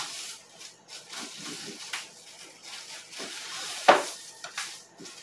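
Frozen sacolé ice pops in plastic bags rustling, crinkling and knocking together as they are taken by the handful from a freezer drawer, with one sharp knock about four seconds in.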